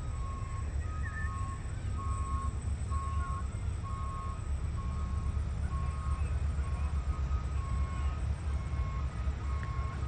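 Steady low engine rumble of a passing locomotive, with a two-tone electronic warning beeper sounding throughout: short beeps alternating between a lower and a higher pitch, about two a second.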